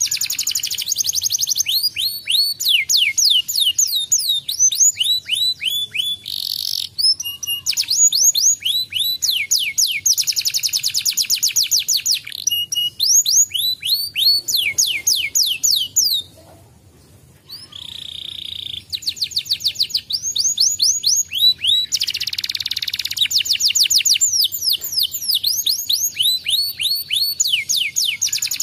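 Domestic canary singing a long, fast song of rolling trills, each made of rapidly repeated falling notes, with a short pause a little past halfway before it takes up again.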